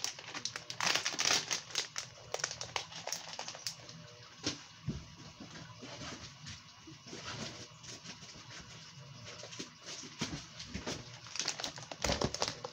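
Plastic lure bags being handled: crinkling and rustling with many small clicks and taps, busiest about a second in and again near the end.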